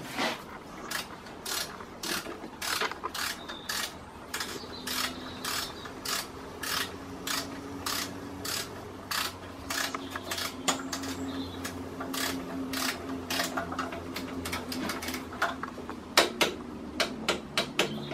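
Hand ratchet clicking in short strokes, about two to three clicks a second and louder near the end, as the bolts of a motorcycle's rear-set mount are done up.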